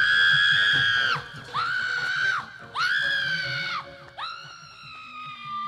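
A woman screaming in long, very high-pitched shrieks, four in a row, each held about a second, the last one softer.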